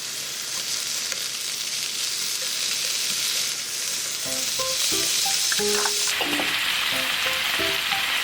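Cabbage and other vegetables sizzling as they stir-fry in a pan, a steady hiss whose sound shifts lower about six seconds in. Light background music with short notes plays under it.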